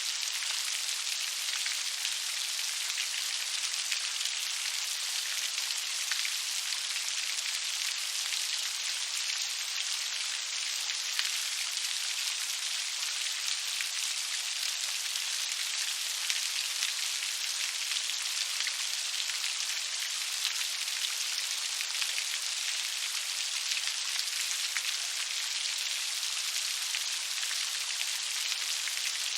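Steady rain falling, an even hiss of countless small drops with no pauses or swells.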